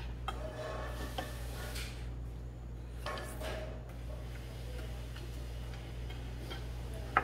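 Spoon and chopsticks clicking and scraping against a stainless steel bowl during eating, with a few scattered light clicks and a sharper one near the end, over a steady low hum.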